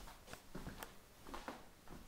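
Soft footsteps on carpet with rustling of clothing and the handheld camera as the person filming walks. Irregular short knocks, about two a second.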